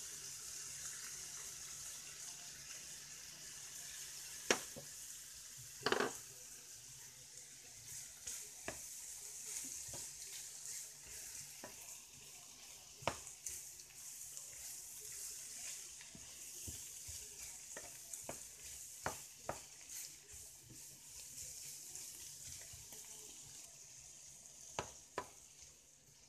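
Chicken and vegetable stir-fry sizzling in a nonstick frying pan, with a wooden spatula knocking and scraping against the pan at irregular moments as the food is stirred. The sharpest knocks come about four and six seconds in.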